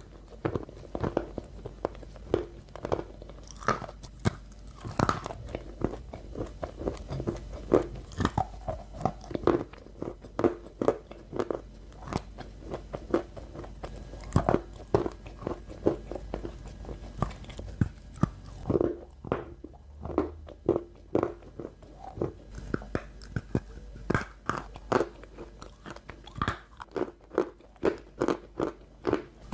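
Crunchy snack balls being bitten and chewed close to the microphone: a steady stream of crisp crunches, several a second, bunching into quicker runs near the end.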